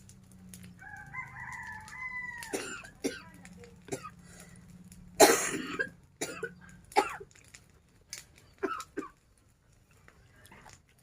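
A rooster crows once about a second in. Then comes a run of hard, harsh coughs, the loudest about five seconds in: a coughing fit bad enough to leave the breath short.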